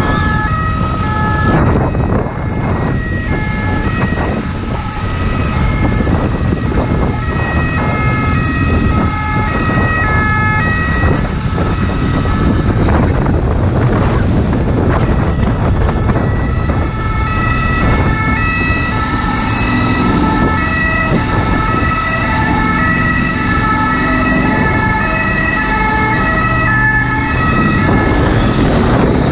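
Ambulance two-tone siren alternating steadily between a high and a low pitch. It fades for a few seconds around the middle, then comes back strongly. Underneath runs the steady rumble of a motorcycle engine and wind on the helmet microphone.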